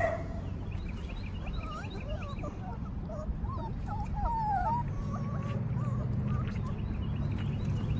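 Several Dutch Shepherd puppies whining and whimpering, a string of short high, bending cries that overlap, while they wait to be fed again after emptying their bowls. A steady low rumble runs underneath.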